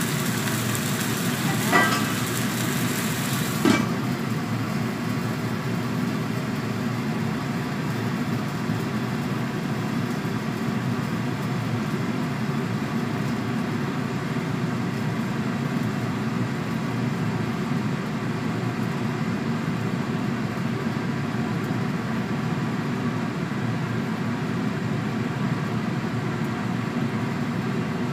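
Bottle gourd frying in a wok on a gas stove: a couple of metal clinks in the first four seconds, the last as the wok's steel lid goes on, after which the high sizzle cuts off. A steady low rumble runs underneath.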